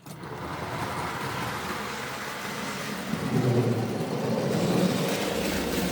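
Tri-ang Railways OO-gauge model trains running on their track: a steady rumble and rattle of motors and wheels on rails, starting at once and growing louder with a low hum about three seconds in.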